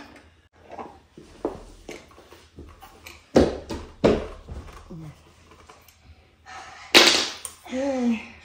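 Parts of a metal stand being handled and fitted together: a series of knocks and clunks, with two heavy thuds around three and a half and four seconds in and a louder clatter about seven seconds in.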